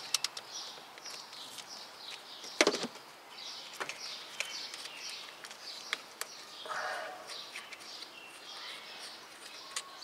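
Faint bird chirps repeating in the background, with a few small clicks of the tools and the nut at the starter's power-cable terminal and one sharper click about three seconds in.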